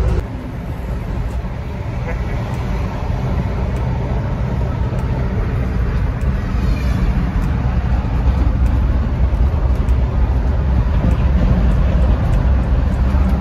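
Steady low road and engine rumble heard from inside the cabin of a moving car. It dips briefly at the start and builds back up over the next several seconds.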